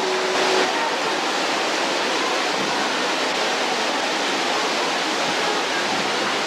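Steady rushing of an indoor waterfall pouring into a diving pool.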